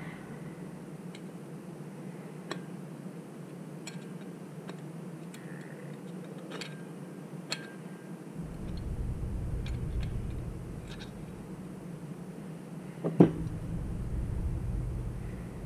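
Small metallic clicks and scrapes of a steel pick working against the aluminium float bowl of a Harley-Davidson Sportster CV carburetor, scattered irregularly over a steady low hum. A low rumble sets in about eight seconds in, and a single sharp knock about thirteen seconds in is the loudest sound.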